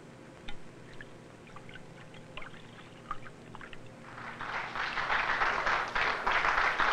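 A few faint scattered clicks, then a rushing noise that swells up about four seconds in and grows loud.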